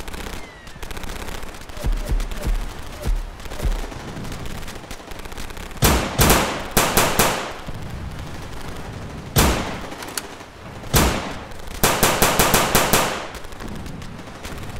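Battle sound effects of machine-gun fire: a few low thuds, then rapid bursts of shots with two single shots between them, over a steady background din.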